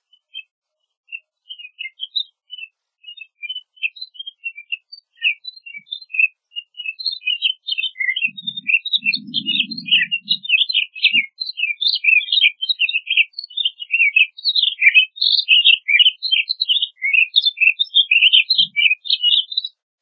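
Pine grosbeaks calling and twittering in short high chirps, scattered at first, then a dense, overlapping stream of notes from about seven seconds in that stops abruptly just before the end.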